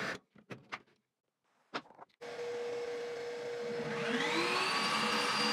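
A few light knocks, then a table saw's motor starts: a whine rises over about half a second as the blade comes up to speed, then runs steadily.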